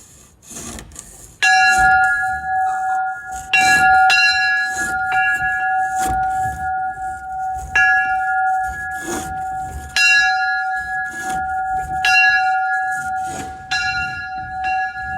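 J. Warner and Sons church bell rung by hand on a rope, sounding F sharp. It is struck again and again, about every two seconds, and each stroke rings on into the next.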